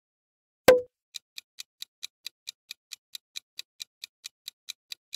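A single sharp pop about two-thirds of a second in, then a clock-style countdown-timer tick sound effect, light even ticks at about four to five a second.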